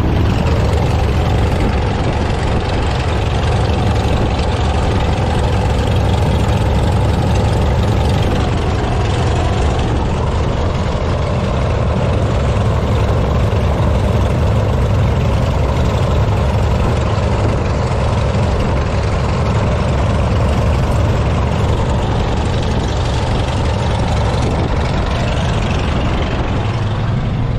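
Light aircraft's piston engine and propeller running steadily at low taxi power, an even, unbroken drone with a strong low hum.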